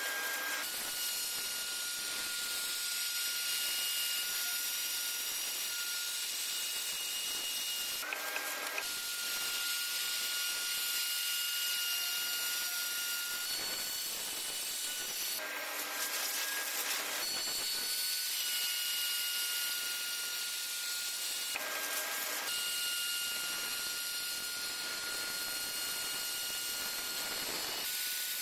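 Electric router with a 2 mm bit cutting circular grooves in plywood. Its motor runs with a steady high whine over a hiss, and the pitch shifts briefly several times.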